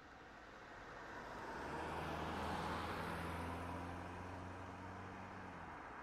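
A motor vehicle passing by: engine hum and road noise swell up, are loudest about two and a half seconds in, then ease off.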